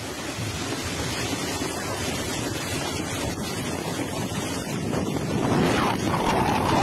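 Water, spray and mud thrown up by an underwater bomb detonation raining down over the position, a dense steady rushing noise that grows louder near the end.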